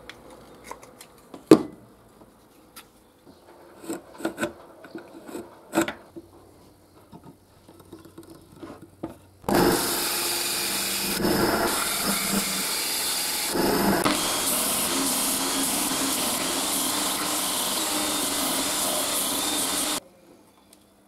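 Scattered clicks and knocks of a welding electrode holder and wooden block being handled, then a band saw running and cutting through a block of wood for about ten seconds, with two short dips, before stopping abruptly near the end.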